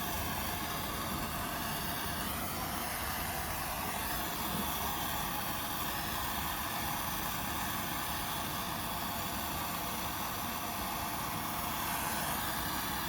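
Handheld gas torch flame burning with a steady hiss, heating a copper pipe joint for soldering.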